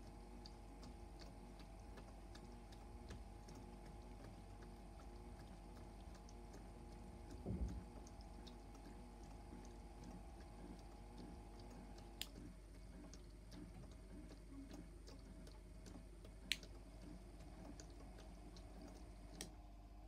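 Toy Miele washing machine's small drum motor running faintly with a steady hum and light, irregular ticking as the drum tumbles foamy water. There is a low bump about seven and a half seconds in. About twelve seconds in the hum changes with a sharp click, and two more clicks follow.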